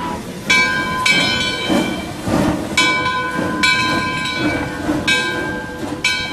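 Train running with a rumble, its horn sounding in a series of short blasts, each starting sharply.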